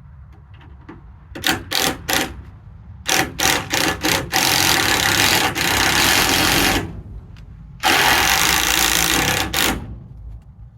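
A handheld power tool is triggered in several short blips, then run twice for two to three seconds each, over a steady low rumble.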